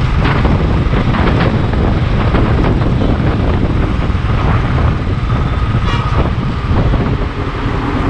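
Motorcycle riding at speed in traffic, heard from the bike's own camera: steady engine and wind noise over the microphone. A short faint tone cuts through about six seconds in.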